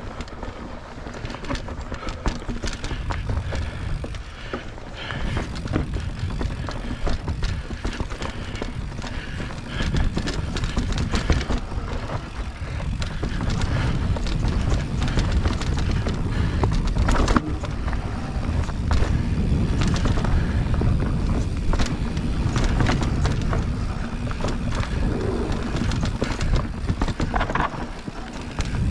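Mountain bike rolling over a dirt singletrack trail under a low, continuous rumble, the bike rattling with many short clicks and knocks as it goes over bumps; it gets louder about ten seconds in.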